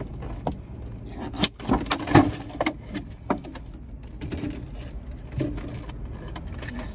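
Plastic food packaging being handled and opened: a run of crinkles and light clicks, busiest in the first half.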